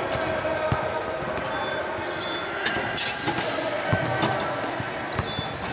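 Basketballs bouncing on a hardwood gym floor: a few separate thuds spread through, echoing in a large gym.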